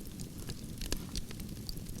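Wood campfire burning, with a steady low rumble and irregular sharp crackles and pops from the logs, the loudest about a second in.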